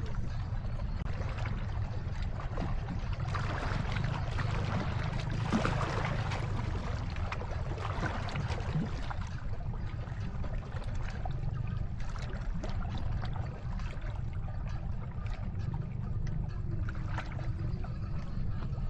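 Sea water splashing and lapping irregularly over a steady low rumble, busier in the first half.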